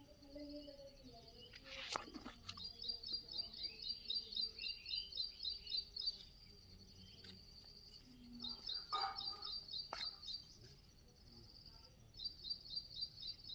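A small bird singing outdoors: runs of quick, high chirps repeated about four times a second, coming in three bursts with short pauses between, over faint background noise.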